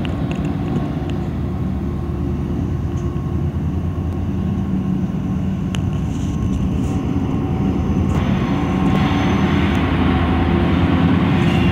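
Diesel engines of a four-unit set of 82 class diesel-electric locomotives (EMD 710-series two-stroke V12s) running as the locomotives pass close by at the head of a coal train: a steady low drone of layered engine tones. From about eight seconds in, a hissing noise grows in on top of the drone.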